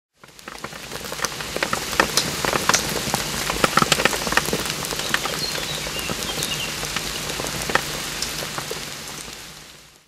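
Water pattering and splashing: a dense hiss full of many small sharp drops. It fades in at the start, is busiest in the first half, and fades out near the end.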